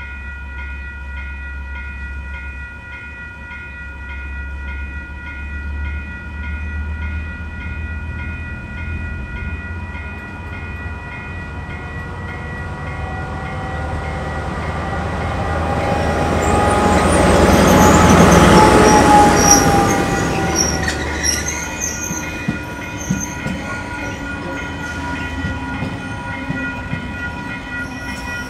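KiwiRail DL-class diesel locomotive hauling a freight train past: a steady low engine rumble that swells to a peak about two-thirds of the way through and then fades, with high wheel squeal around the loudest moment. Several steady high tones ring throughout.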